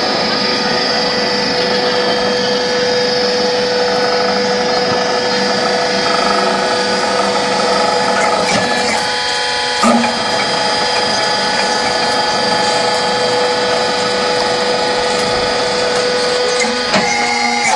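LY6-30 mobile concrete block machine running: a loud, steady mechanical hum with several held whining tones, broken by a few brief knocks midway and near the end.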